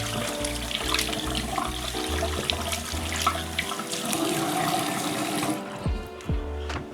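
Water running from a bathroom tap into a sink, a steady splashing hiss that stops about five and a half seconds in, over background music with a steady bass line.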